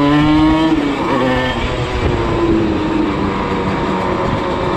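Tuned 85cc reed-valve two-stroke Simson engine pulling under load while riding. Its note climbs for about the first second, drops, then rises briefly again and runs on steadily at high revs.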